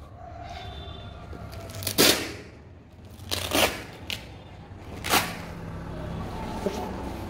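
Three sharp, brief smacks from a pair of boxing gloves being handled on the hands, about two, three and a half, and five seconds in; the middle one is doubled.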